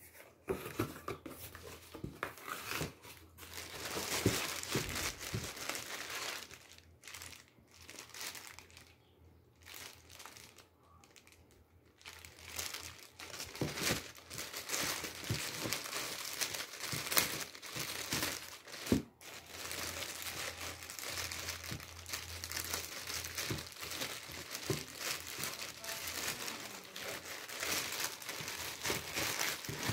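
Cardboard box flaps being opened and handled, then, from about halfway through, a clear plastic bag crinkling steadily as a fitted baseball cap inside it is lifted and handled.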